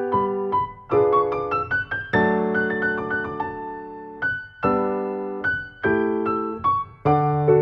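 Background piano music: struck notes and chords that start crisply and ring down, with one chord held for about two seconds in the middle.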